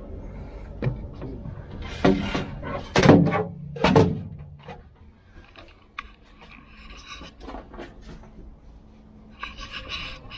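Handling noises: a few short knocks and rustles, loudest in the first half, then scattered small clicks and more rustling near the end.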